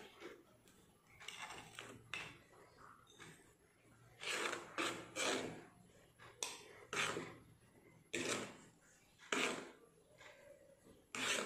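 Steel spoon scraping powdered biscuit crumbs off a plate and scooping them into a small glass, a series of short scrapes about a second apart.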